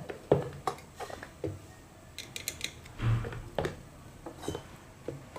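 Scattered light clicks and clinks of hand tools being picked up and set down on a cluttered workbench, with a duller knock about three seconds in.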